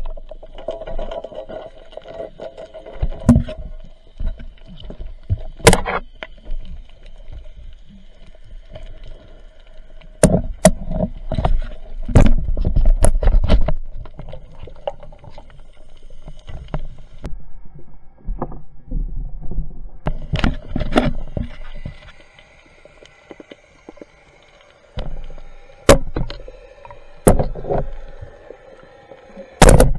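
Underwater sound picked up by a diver's camera: irregular knocks and bumps with water movement, over a faint steady hum.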